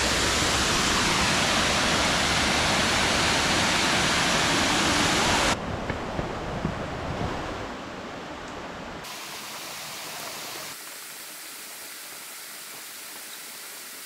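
Waterfall cascading into a plunge pool, a loud, steady rush of water. About five and a half seconds in it cuts abruptly to the much quieter flow of a shallow rocky stream, which drops lower again twice.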